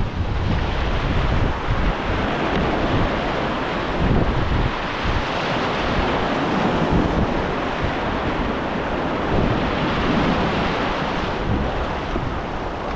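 Whitewater rapids rushing steadily, with wind and water buffeting the microphone in a low, uneven rumble.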